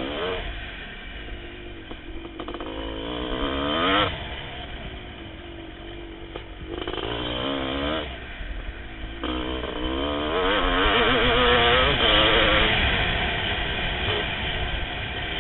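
1988 Kawasaki KX500's 500 cc two-stroke single-cylinder engine under hard acceleration, heard from on the bike. The revs climb and cut sharply about four seconds in, climb again near eight seconds, then hold high and rising for a few seconds before easing.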